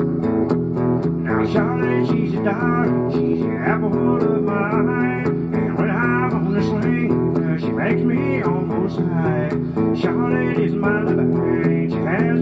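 A man singing a country song over his own strummed guitar, which runs steadily throughout.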